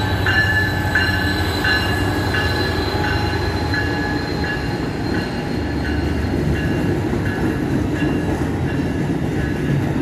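Amtrak passenger train pulling out at low speed: a Siemens Charger diesel locomotive goes by, then Superliner bi-level cars roll past with a steady rumble of wheels on rail. A bell rings about every 0.7 seconds and grows fainter as the locomotive moves away.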